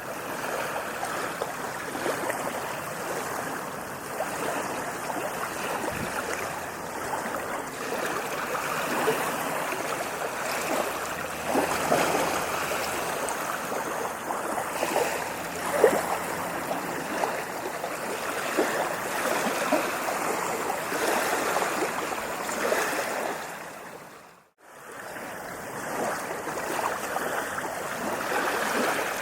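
Sea waves washing onto a beach: a continuous hiss of surf with fizzing, crackling foam. About three-quarters of the way through the sound fades briefly to near silence and then comes back.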